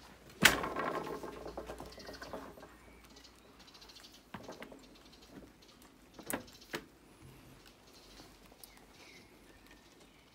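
Sliding door with a white frame being handled: a sharp knock about half a second in, with a rattle that fades, then a few scattered sharp clicks as its handle and lock are worked.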